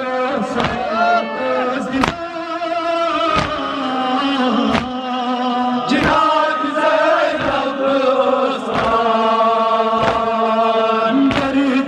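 A crowd of men chanting a Kashmiri noha (Muharram lament) together in long held lines. Sharp slaps from chest-beating (matam) mark the rhythm about every second and a half.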